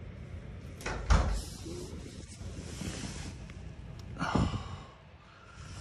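Handling noise from a phone being moved about on bedding, with a heavy thump about a second in and a second noisy rush a little past four seconds.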